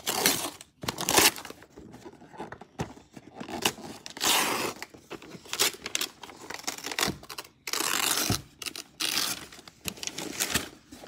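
Wrapping paper being torn off a gift box by hand, in about six short rips at irregular intervals.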